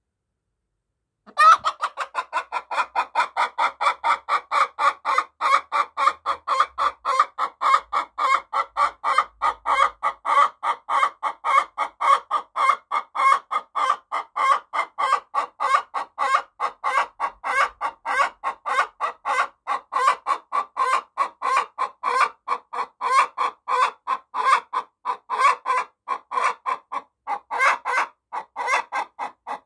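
Domestic hen cackling after laying an egg: a long run of short, evenly spaced clucks, about three or four a second, starting about a second in.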